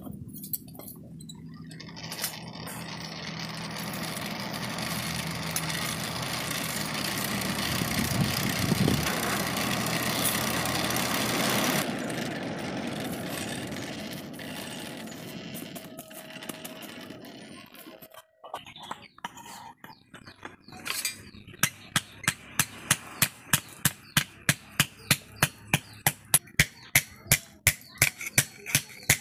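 A charcoal forge fire under a forced air blast: a rushing noise with a low hum that builds over several seconds, then fades. About three-quarters of the way through, a hand hammer starts forging the hot iron spade blade on the anvil in steady, sharp blows, about two and a half a second.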